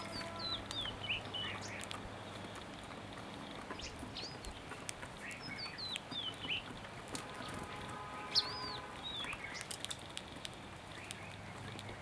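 Small songbirds chirping: short, quick chirps that drop or arch in pitch, scattered irregularly throughout, the loudest a little after eight seconds, with a few faint clicks among them.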